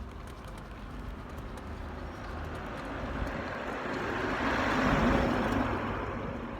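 A road vehicle passing by: its noise swells to a peak about five seconds in and then fades.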